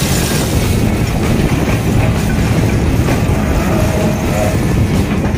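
Hyundai crawler excavator's diesel engine running steadily as its bucket digs and pushes through a heap of crushed stone, the stones clattering and grinding.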